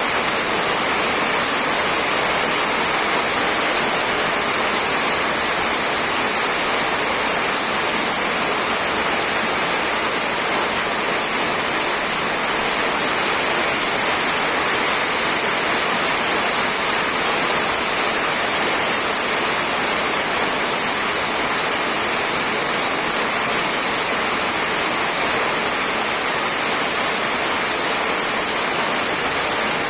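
Heavy rain falling steadily on a tin roof, a dense, even hiss with a strong high edge and no single drops standing out.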